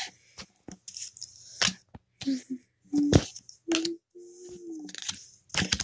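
Pokémon trading cards handled and flipped on a table: several short sharp flicks and slides of card stock. A few brief hummed vocal sounds fall between them in the second half.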